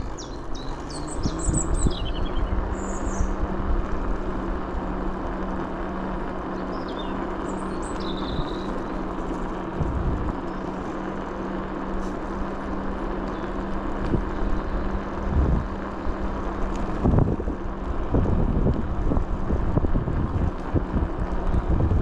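A vehicle running steadily with a low hum and rumble, and a few knocks. Birds chirp over it in the first few seconds and again around seven to eight seconds in.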